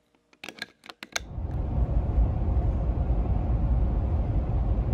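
A few sharp clicks and knocks of the camera being handled, then from about a second in a steady low rumble of road and engine noise inside a moving vehicle's cab.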